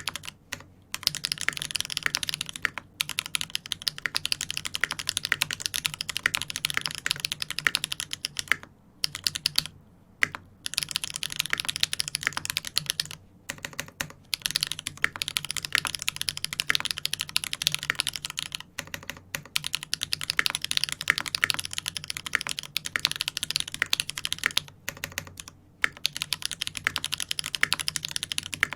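Fast typing on a custom mechanical keyboard with lubed tactile switches, a 1.5 mm brass plate and GMK keycaps: a dense run of keystrokes with brief pauses, and a longer pause about nine seconds in.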